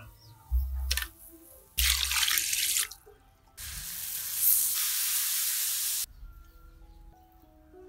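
Boiled noodles sizzling as they drop onto chaya leaves in a hot wok: a short hissing burst about two seconds in, then a louder steady sizzle of about two and a half seconds that cuts off abruptly.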